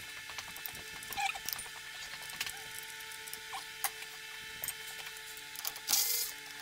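Small clicks and scrapes of tools working on a drum-brake wheel cylinder, over a faint steady hum, with a brief louder burst near the end.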